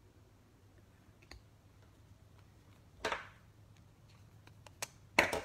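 Trading cards being handled by hand: scattered light clicks, a short rustling swish about three seconds in, and a sharper clatter near the end.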